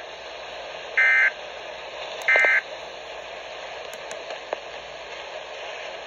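Weather radio sounding the short bursts of a SAME digital data signal, which mark the end of an alert message. The tail of one burst comes right at the start, then two more follow about 1.3 s apart, over a steady radio hiss.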